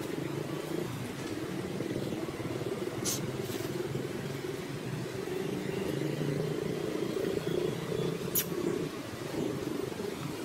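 A steady low mechanical hum, as of an engine running, with two short sharp clicks about three and eight seconds in.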